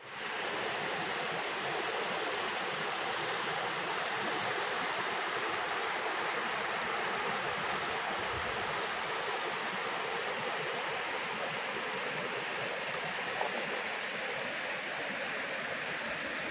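Swollen river in flood: fast, muddy water rushing and churning around fallen trees and debris, a steady, even roar of water.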